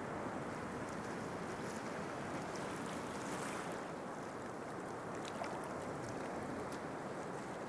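Steady rushing wash of sea surf, with faint crackles scattered through it.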